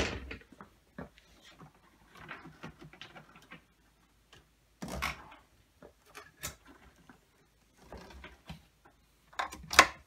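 Scattered light clicks, rustles and knocks of things being handled on a workbench, with a louder clack about five seconds in and a quick cluster of sharper knocks near the end as a cable and plug are handled.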